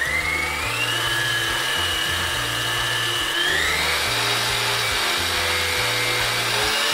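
Electric stand mixer whipping egg whites into stiff foam, its motor whine rising as it speeds up, then stepping up again about halfway through.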